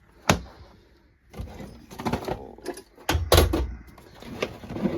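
Tools and toolbox parts being handled: a string of sharp clicks and knocks, with a heavier thump a little over three seconds in.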